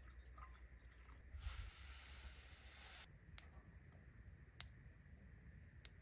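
Water poured from a plastic bottle into a pot on a camp stove, a soft splashing that stops abruptly about three seconds in, followed by three faint sharp clicks about a second apart.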